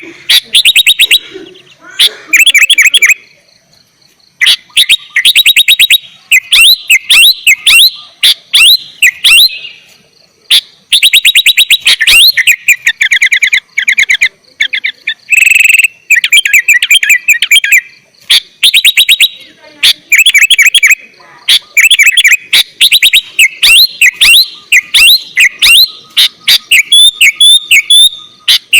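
Sooty-headed bulbul (kutilang) singing loudly and continuously, in repeated bursts of rapid chirping phrases separated by short pauses.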